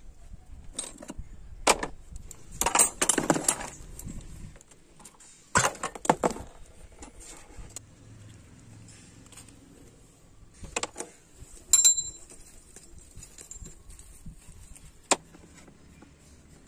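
Metal tools and motorcycle engine parts clinking and rattling during hands-on dismantling: scattered sharp clicks, short jangling rattles about 3 and 6 seconds in, and a louder clank near 12 seconds.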